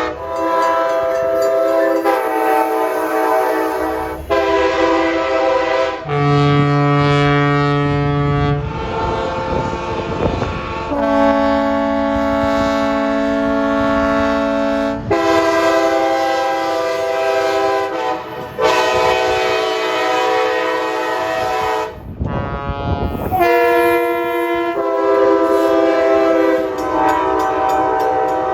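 Long Island Rail Road train horns, one blast after another: each is a chord of several steady notes, and the chord changes abruptly from blast to blast, so several different horns are heard. Twice, briefly, the horns give way to the noisy rumble of a train running by.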